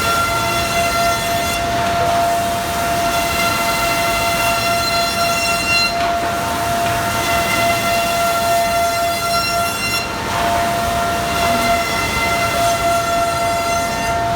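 QMB 823GH eight-spindle four-sided moulder running at speed, its cutterheads giving a loud, steady high-pitched whine over a broad rushing noise. The sound briefly thins out about every four seconds.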